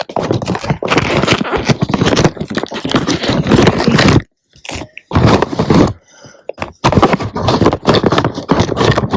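Cardboard product box and its packaging being handled and opened close to the microphone: dense scraping and crinkling, broken by two short pauses near the middle.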